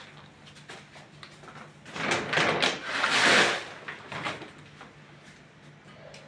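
A kitchen cabinet drawer sliding on its runners: a few light knocks, then a loud rattling scrape from about two seconds in that lasts under two seconds. A faint steady hum runs underneath.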